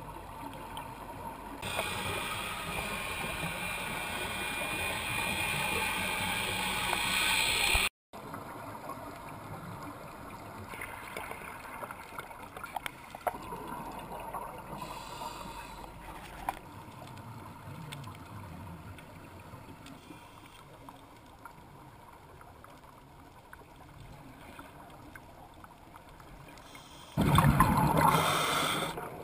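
Underwater sound picked up through a camera's waterproof housing: a scuba diver's exhaled bubbles rushing and gurgling for several seconds, then a quieter stretch with scattered faint clicks, and a second short burst of bubbles near the end.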